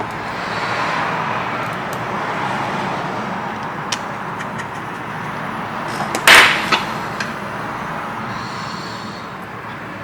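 Light clicks and one loud, sharp clack about six seconds in, from a laptop and its charger being handled on a workbench, over steady background noise.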